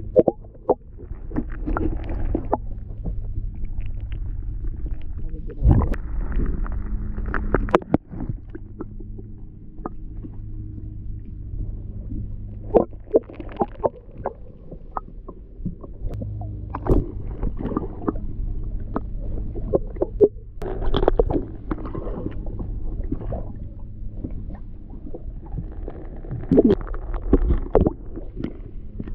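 Muffled water and boat noise picked up by an underwater camera: a steady low hum with scattered knocks, clicks and splashes.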